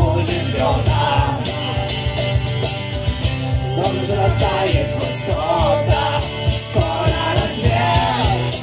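Live rock band playing: electric and acoustic guitars with a steady beat, and a voice singing over them.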